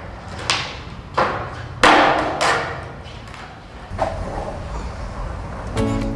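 Skateboard striking a smooth concrete floor: four sharp clacks and thuds in the first two and a half seconds, each ringing out in a large echoing space. Music starts near the end.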